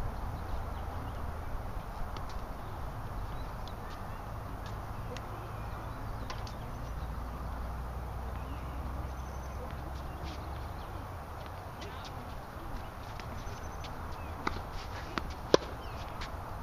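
Scattered sharp pops of a tennis ball being hit and bouncing on a hard court, heard from across the court over a steady low rumble of background noise; the pops come more often and louder near the end, with one standing out about a second before the end.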